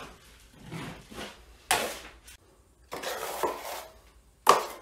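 Steel drywall taping knife scraping joint compound against a mud pan in several short strokes, loading the knife for the next coat. The loudest two are sharp scrapes, one about a second and a half in and one near the end.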